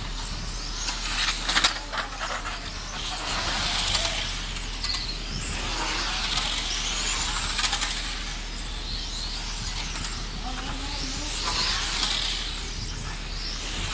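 Electric 1/10-scale radio-controlled pan cars racing past, their motors whining in high sweeps that rise and fall several times as the cars come and go. A few sharp clicks are heard about a second and a half in.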